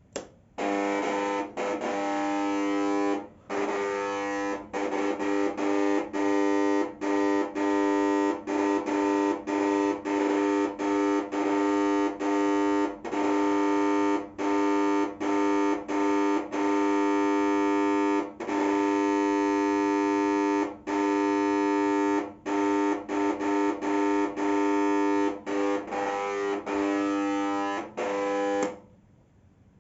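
Ballast of a 40 W T10 daylight fluorescent tube at the end of its life, giving a loud harsh buzz. The buzz cuts out and comes back many times at irregular intervals, then stops.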